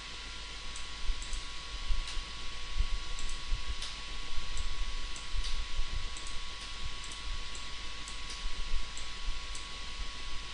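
Computer mouse clicking, a dozen or so short irregular clicks as on-screen objects are selected and dragged, over a steady hiss and faint hum.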